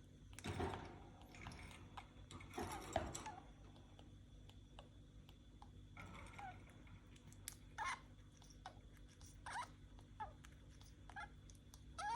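Budgerigar's breathing noises: faint clicks and short, high, falling squeaks with its breaths, recurring every second or two, with two brief rustles in the first few seconds.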